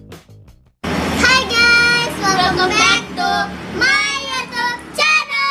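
Two young girls singing together in high voices, ending on a long held note near the end. The tail of an intro music track fades out just before they start.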